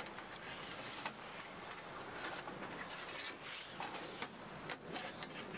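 Light metal clicks and knocks from a small stainless-steel wood-stove oven as its door latch is turned and the door swung open, scattered over a faint steady hiss.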